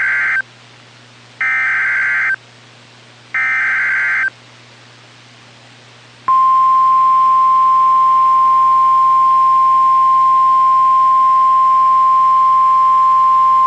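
NOAA Weather Radio Emergency Alert System SAME header: the tail of one digital data burst and two more bursts of about a second each, repeated about two seconds apart. After a short pause, the warning alarm tone starts about six seconds in and holds as one steady high tone. Together they signal the broadcast of a flash flood warning.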